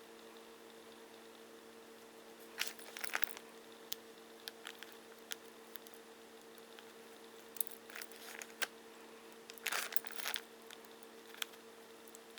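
Faint handling noises from work on a small model locomotive: scattered clicks, taps and short scrapes in three clusters, about three, eight and ten seconds in, over a steady low hum.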